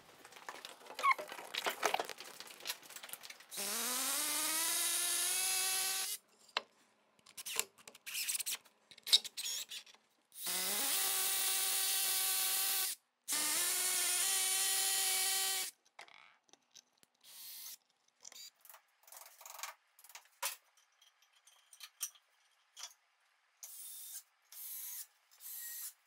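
Cordless drill boring into a brick wall: the motor spins up and holds a steady whine in three runs of two to three seconds each, with scattered knocks and clicks between. Near the end come shorter, quieter bursts as it drives screws through the wooden battens.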